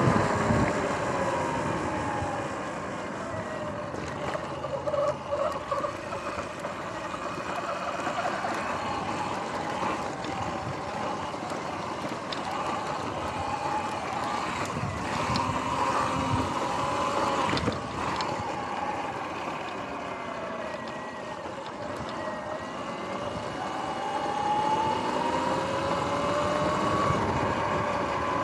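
Sur-Ron X electric dirt bike under way: the motor's whine glides down in pitch as it slows, then rises near the end as it speeds up again, over tyre and wind noise. A single sharp knock comes about two thirds of the way through.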